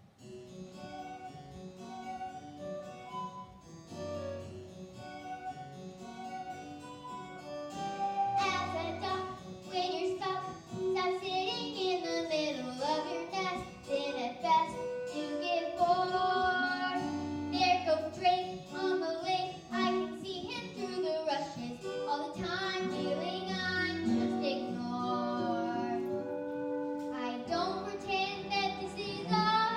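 A musical number begins: a keyboard accompaniment plays a short introduction, and about eight seconds in children's voices start singing over it.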